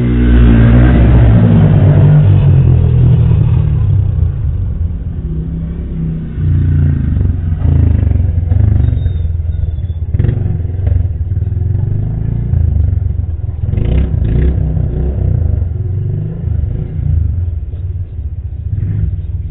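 A motor vehicle's engine running close by, with its pitch shifting as it revs, and a few short knocks.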